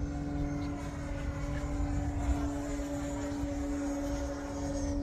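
Electric ducted fan of a radio-controlled Avanti V2 jet running in flight: a steady whine with slowly bending higher tones as the jet passes, over a low rumble.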